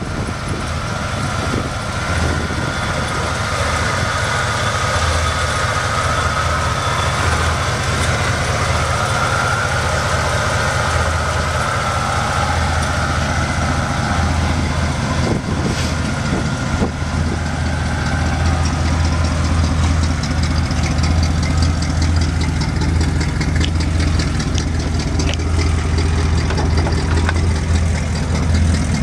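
A 1972 Chevrolet pickup's engine idling steadily.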